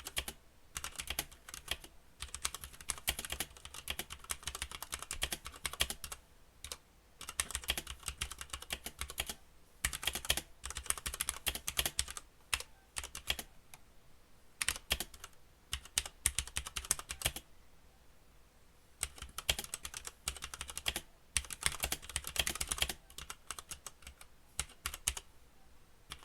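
Typing on an ASUS ROG Strix Scope TKL mechanical keyboard with Cherry MX Red linear switches: rapid runs of key clacks, each lasting one to a few seconds, broken by short pauses.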